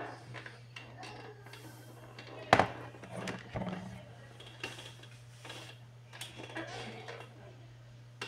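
A round plastic digital LED wall clock handled and set down on a desk, with a sharp knock about two and a half seconds in and smaller clicks and rustles around it, over a steady low hum.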